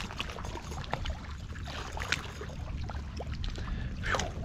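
Shallow water lapping and trickling around a wader, with small clicks and rustles from handling and unhooking a small snook. About four seconds in there is a brief splashy burst as the fish is tossed back into the water.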